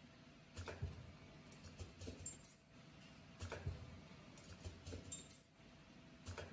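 Ultrasonic zipper bottom-stop welding machine running its automatic cycle. A short, high-pitched ultrasonic weld whine of about half a second comes twice, roughly every three seconds, with light mechanical clicks and knocks of the feed and hook between the welds.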